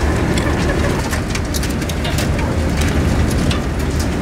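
Ambient din of a caged laying-hen barn: many hens clucking over a steady low mechanical hum, with frequent sharp clicks and rattles against the wire cages. It cuts off suddenly at the end.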